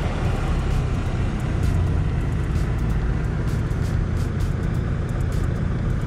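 A motor vehicle's engine running steadily, a low rumble that does not rise or fall.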